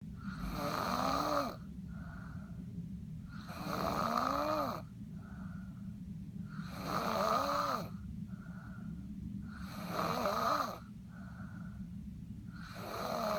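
A person snoring in sleep, with a harsh snore on each breath in about every three seconds, each rising and then falling a little in pitch. A softer breath out follows each snore.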